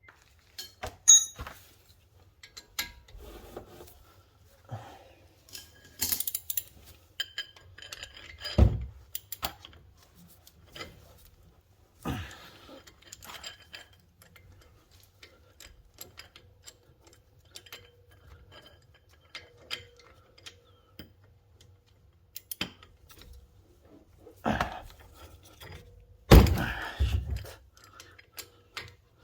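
Tools and metal parts being handled during car repair: scattered clinks and clanks with a few heavier thunks, the loudest near the end.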